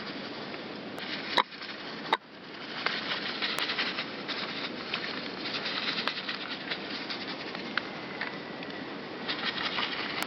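Birds' wings flapping and fluttering, with small taps and ticks over a steady hiss, and two sharp clicks about one and a half and two seconds in.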